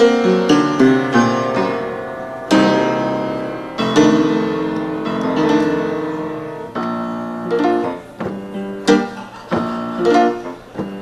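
Solo piano playing a slow introduction: a run of notes stepping downward, then chords struck every second or so and left to ring out.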